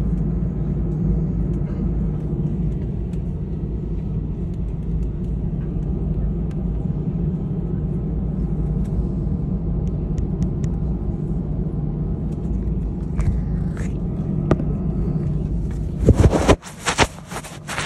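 Steady low rumble of an Airbus A320's engines and airframe heard inside the passenger cabin. Near the end comes a short cluster of loud knocks.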